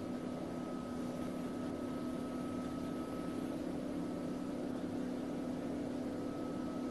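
Steady machine hum with an even hiss and a faint high whine from an H160 oxy-hydrogen (HHO) gas generator running while its torch flame heats a brass fitting for soldering.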